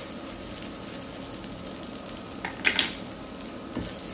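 Chopped onion frying in hot oil in a nonstick pan: a steady sizzle, with one short louder burst of noise about two and a half seconds in.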